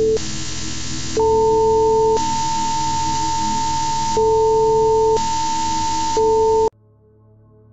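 Emergency-alert broadcast tones over static hiss: a lower tone beeping on and off, each beep about a second long, with a steady higher tone joining about a second in. Everything cuts off suddenly near the end.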